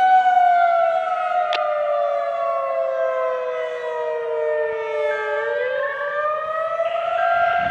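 Federal Signal 2001-SRN dual-tone rotating siren sounding the attack signal. Its pitch falls slowly for about five seconds, then rises back up to full pitch near the end.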